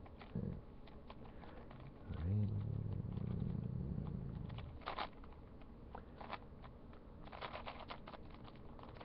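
Plastic 4x4 Rubik's cube being twisted by hand, its layers clicking in short scattered runs, busiest near the end. About two seconds in, a low steady hum lasts a couple of seconds and is the loudest sound.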